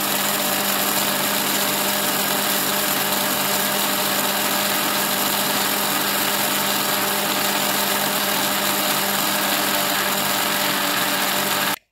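Electric blender running steadily at full speed, grinding dried red curly chilies dry, with no water, into powder. The motor switches off suddenly near the end.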